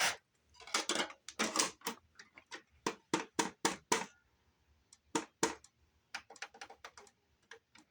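Sharp, irregular plastic clicks from a boombox's CD section being worked by hand, with a quick run of lighter clicks near the end, as it is made to read a disc. The player is slow to read because its trigger is worn.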